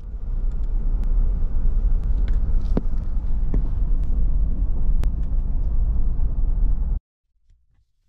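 Car driving along a road, heard from inside the cabin as a steady low rumble of road and engine noise with a few small knocks. It cuts off abruptly near the end.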